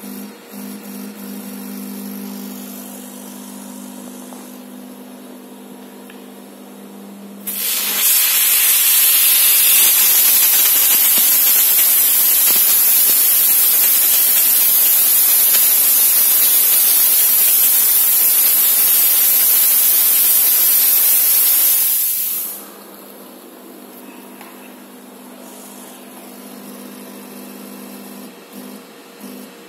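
Steam washer's spray gun blasting steam: a loud, steady hiss that starts abruptly about seven seconds in and cuts off about fifteen seconds later. Before and after it, a quieter steady hum.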